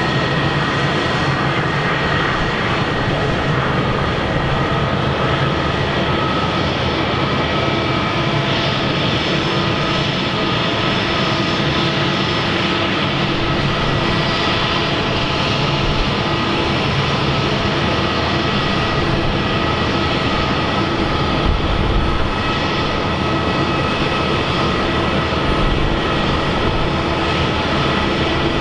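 Airbus A319's IAE V2500 turbofan engines running steadily: a constant roar with a steady high whine, holding the same level throughout.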